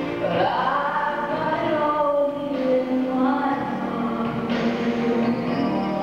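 Recorded song with a singing voice over instrumental backing. The voice glides up into a held note about half a second in, then holds long notes.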